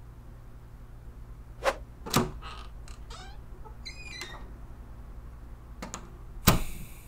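An interior door being opened and closed: the handle and latch click a couple of times, the door gives a short creak about four seconds in, and a sharp knock with a brief ringing comes near the end.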